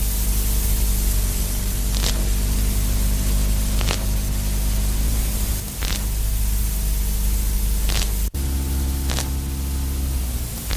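Experimental electronic noise music: a dense wall of static hiss over a steady low hum of several held tones, with faint clicks about every two seconds. A sudden cut at about eight seconds, after which the low tones shift.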